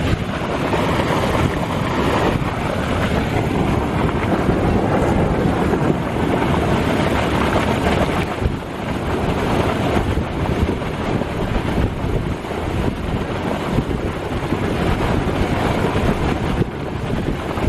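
Fast, turbulent water rushing and churning in a concrete-lined irrigation canal, a steady rush, with wind buffeting the microphone.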